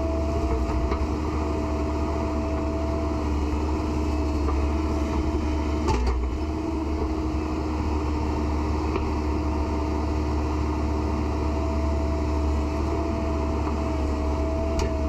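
Excavator's diesel engine running at a steady speed, with a constant whine over a deep low drone and one brief knock about six seconds in.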